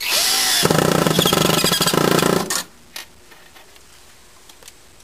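Cordless drill driving a #8 × 5/8-inch screw through a metal wing bracket into the platform. The motor whirs up with a rising pitch, then runs with a fast rattle for about two seconds before stopping abruptly.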